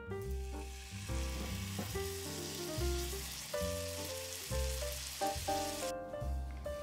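Food sizzling in a hot frying pan, a steady hiss that cuts off abruptly about six seconds in. Background music with piano-like notes and a bass line plays throughout.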